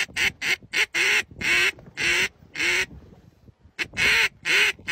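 Duck call held in a black Labrador's mouth, sounding a string of quacks with the dog's breaths: quick short ones at first, then longer drawn-out ones, a pause of about a second past the middle, then more quacks.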